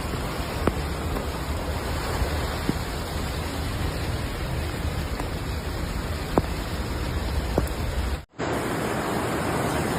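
Steady rushing of heavy water, with a deep rumble underneath and a few sharp clicks. It breaks off for an instant about eight seconds in, then resumes a little thinner.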